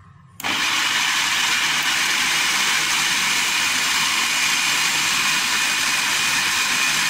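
Electric food processor (chopper machine) switching on about half a second in and running steadily at full speed, its blade chopping boneless chicken with onion, garlic and spices into a mince.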